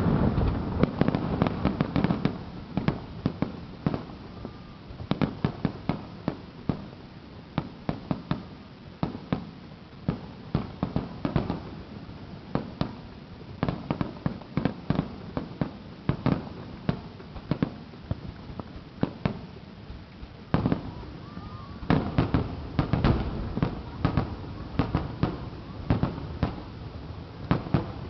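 Aerial fireworks bursting: deep booms in the first couple of seconds, then many sharp cracks and pops in quick runs, with a denser cluster of crackling about three-quarters of the way through.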